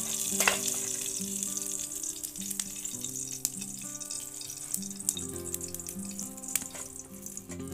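Oil sizzling in an iron kadai over a wood fire: a steady hiss with a few sharp clicks, under instrumental background music.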